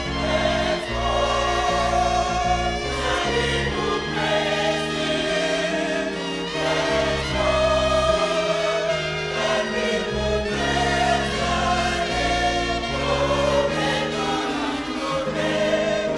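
Gospel choir singing over instrumental backing, with held chords and a steady bass line.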